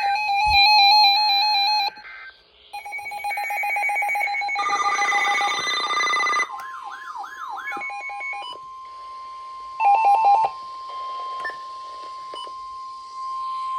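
Emergency Alert System signalling tones: a run of short, buzzy digital data bursts and a warbling tone. These give way to a long steady high alert tone, the attention signal that comes before a broadcast tornado warning.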